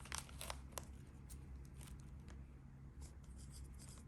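Light clicks and taps of a metal Zippo lighter case being handled, a few scattered small knocks over a low steady hum.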